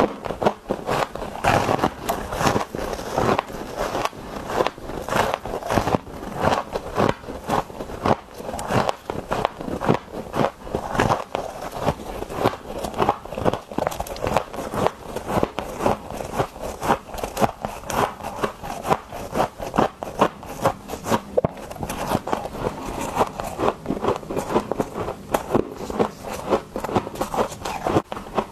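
Biting and chewing clumps of powdery deep-freezer frost, close-miked: dense crackly crunches, several a second.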